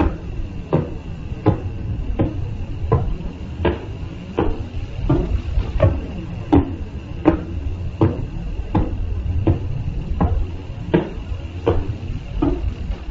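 Radio emission of the pulsar PSR B0329+54 converted to sound: sharp, regular pulses about 1.4 a second over a steady hiss and low rumble, with a faint steady whistle. Each pulse is one turn of the rotating neutron star's beam sweeping past Earth.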